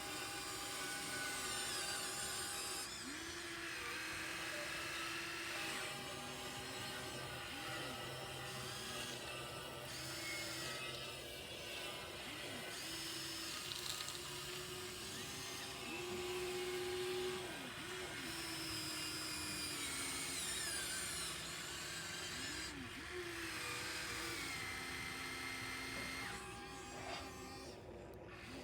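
Small electric motors of a radio-controlled model excavator whining as it works, several tones at once whose pitch slides up and down and shifts every few seconds as the machine's movements change.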